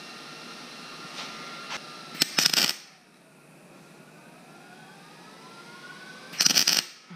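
MIG (wire-feed) welder striking two short tack welds on 1/8-inch steel plate, each arc burst lasting about half a second, about four seconds apart.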